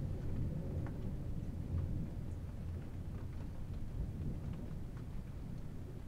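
A rainstorm heard from indoors: a steady low rumble with faint scattered ticks of rain.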